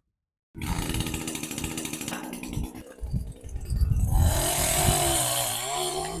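Chainsaw starting abruptly about half a second in, running at high revs and cutting into a white oak limb. It grows louder and hissier in the second half as the chain bites through the wood.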